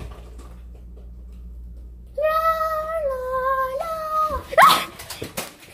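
A child singing a few held 'la' notes in a wavering tune, starting about two seconds in, followed near the end by a short rising yelp and a few sharp clicks and knocks.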